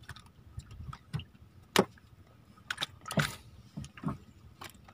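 Scattered knocks and clicks of handling aboard a small wooden boat, the sharpest click about two seconds in and a duller knock a little after three seconds.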